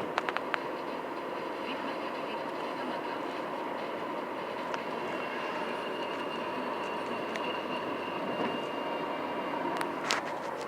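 Steady road and engine noise of a car driving, with a few faint clicks near the start and near the end.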